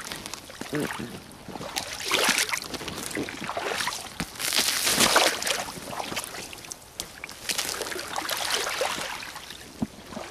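Soviet 'Red Bogatyr' rubber boots wading through shallow meltwater and slush, splashing and sloshing with each step. The steps come irregularly a second or two apart, the loudest splash about halfway through.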